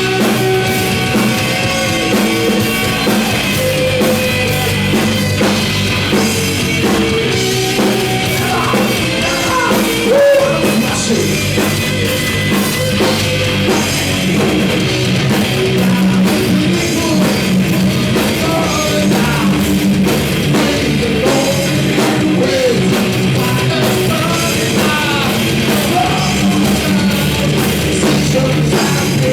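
A heavy rock band playing live and loud: drum kit, guitars and bass, with a voice singing in places.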